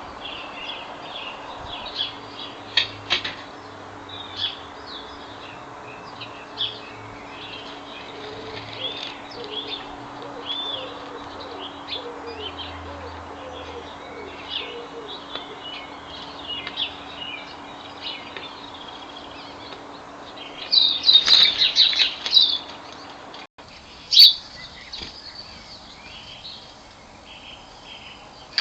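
Small garden birds chirping and twittering all through, many short calls overlapping, with a louder, denser flurry about three-quarters of the way through and a single sharp click shortly after.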